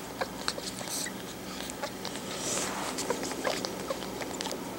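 Newborn pug puppies suckling at their mother's teats: a scatter of small, quick wet clicks and smacks.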